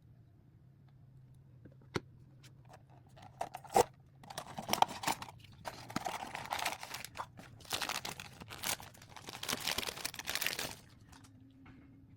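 Plastic packaging being torn open and crinkled by hand. A couple of sharp clicks come first, then the crinkling and rustling run in bursts for about seven seconds before stopping near the end.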